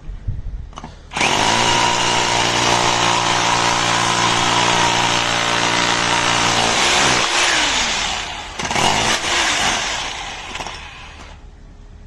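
ENEACRO 1500W SDS-Plus rotary hammer drill's electric motor running at a steady full speed for about six seconds. It is released and winds down, then runs again briefly near the end and winds down once more.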